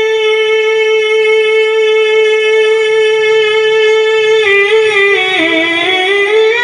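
Unaccompanied male voice singing a naat through a microphone and stage PA, holding one long steady note, then breaking into a wavering, ornamented melodic run about four and a half seconds in.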